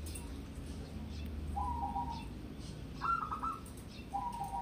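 Zebra dove (local perkutut) cooing: a drawn-out lower coo about one and a half seconds in, a quick stuttering run of higher notes about three seconds in, and another drawn-out coo near the end.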